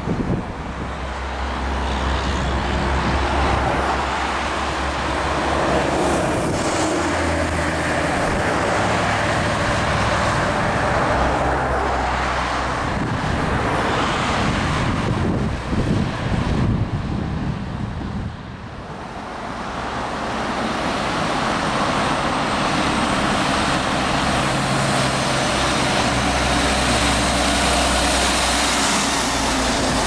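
Road traffic passing close by: vehicle engines and tyre noise, with a short lull about two-thirds of the way through before the next vehicle comes up.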